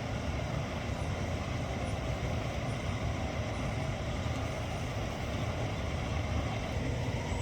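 Steady outdoor background noise with a low rumble, like distant road traffic, and no distinct event; a few faint, short high chirps in the first few seconds.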